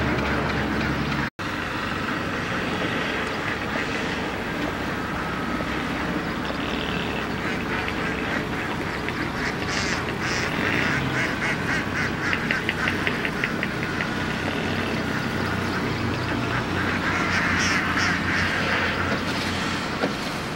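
A large flock of domestic ducks quacking in a busy, overlapping chorus, with a quick run of rapid quacks in the middle and louder calling near the end. A steady low hum breaks off about a second in.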